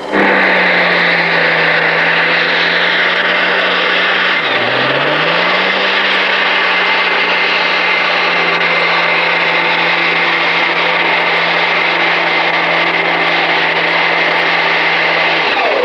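Super stock pulling tractor's diesel engine running flat out under heavy load as it drags the sled. The engine pitch drops sharply about four and a half seconds in as it lugs down, then climbs back and holds, with a steady high whine on top.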